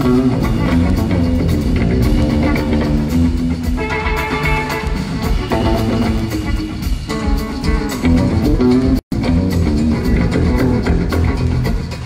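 Electric bass guitar playing a solo live through an arena sound system, notes moving up and down the neck. The sound cuts out for an instant about nine seconds in.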